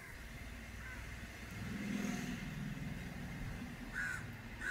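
Engine of a passing motor vehicle, a low hum that swells about two seconds in and eases off, with a few short bird chirps over it.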